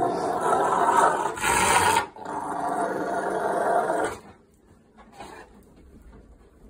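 Rottweiler growling loudly and continuously while tugging on a towel, in two long stretches with a short break about two seconds in, stopping at about four seconds. It sounds ferocious but is a play growl over the towel, not aggression.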